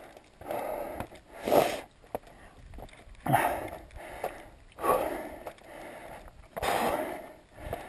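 Heavy breathing of a hiker climbing a steep, rocky trail: a loud, rushing breath about every one and a half to two seconds.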